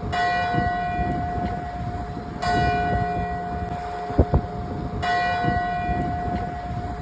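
A church bell tolling: three strikes of the same tone, about two and a half seconds apart, each ringing on until the next. A single sharp knock comes about four seconds in.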